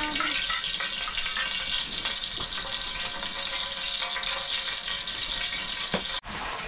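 Steady rush of running water that cuts off abruptly near the end.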